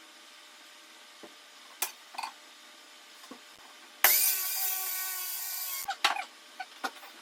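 A few light knocks of wood being handled, then an electric power tool runs for about two seconds, starting and stopping abruptly, with a steady motor whine.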